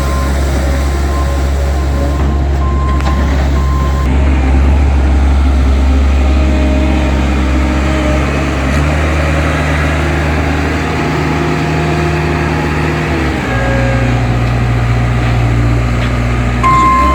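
Bobcat skid steer loader's diesel engine running steadily while driving its hydraulic sweeper attachment, its note shifting about halfway through and again a few seconds later. A reversing alarm beeps in short, evenly spaced pulses over the first few seconds and again near the end.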